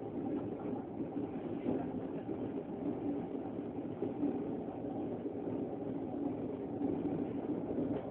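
Steady rumble of an S-Bahn commuter train running, heard from inside the passenger carriage.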